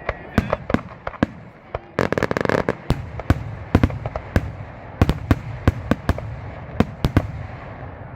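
Fireworks going off: many separate sharp bangs at irregular intervals, with a rapid rattling string of crackling pops about two seconds in, over a low background rumble.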